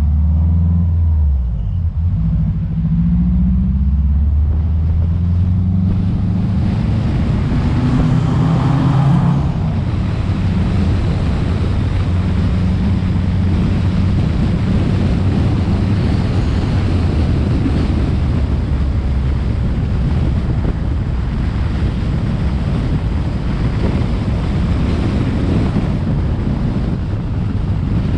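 Car engine pulling away, its note climbing over the first several seconds, then steady driving with wind rushing across a roof-mounted camera's microphone along with road noise.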